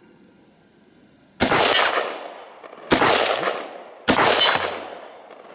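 Three single rifle shots from a WWSD2020 AR-15-type rifle in 5.56 NATO / .223, fired offhand. The first comes about a second and a half in and the others follow at a little over a second apart, each with a sharp crack and a trailing echo that fades over about a second.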